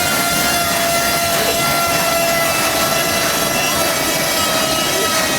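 Water-powered sawmill running: a steady mechanical drone with a whining tone that drifts slightly lower in pitch as the saw works.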